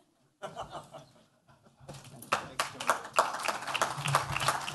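Audience applause, starting about two seconds in and going on steadily.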